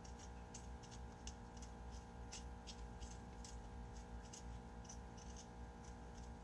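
Small knife scraping the thin skin off a small potato: faint short scrapes and clicks at an irregular pace, a few a second, over a steady low hum.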